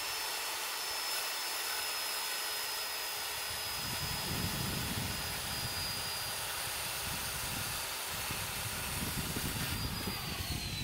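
Skil circular saw cutting across a rough-sawn lumber board: a steady motor whine over the noise of the blade in the wood. The pitch sinks slightly through the cut and falls more steeply near the end.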